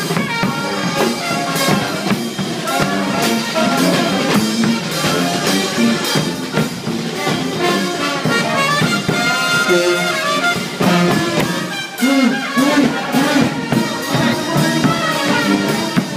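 New Orleans–style brass band playing a second-line tune live: trumpet and trombone lines over bass drum and snare keeping a steady beat.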